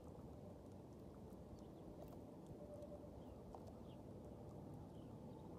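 Near silence: a faint, steady low rumble, with a few faint, short high chirps here and there.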